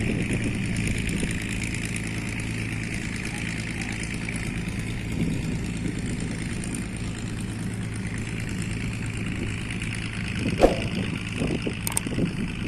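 Ferry boat's engine running at a steady hum, with a few light knocks near the end.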